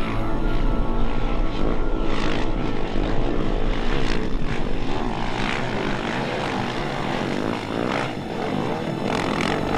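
Single-cylinder 450 cc Yamaha rally motorcycle engine, revving hard as the bike rides through soft sand dunes, its pitch repeatedly rising and falling as the throttle is worked.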